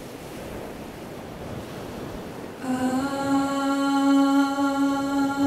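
Outdoor wind-like noise, then, a little under three seconds in, a single steady musical note with many overtones starts and is held.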